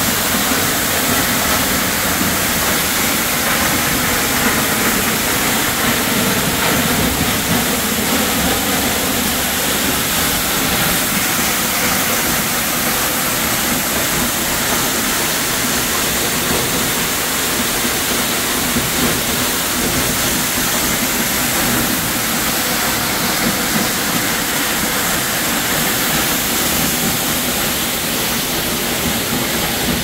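A waterfall pouring at close range: a loud, steady rush of falling water and spray.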